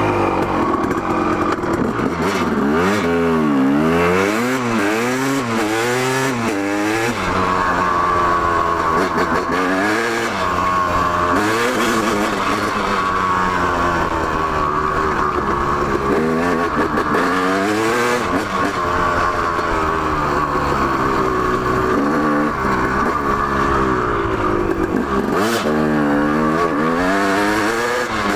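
2004 KTM 250 SX single-cylinder two-stroke dirt bike engine under way on a ride. Its pitch rises and falls quickly, about once a second, in the first several seconds as the throttle is worked through the gears, then holds steadier at high revs, and swings up and down again near the end.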